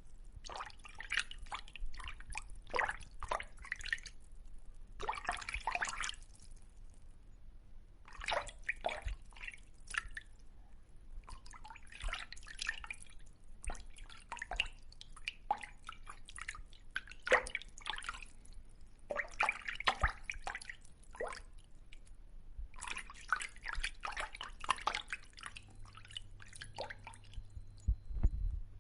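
Fish sound effect: wet clicks and pops, like dripping or smacking, coming in clusters of one to two seconds with short pauses between.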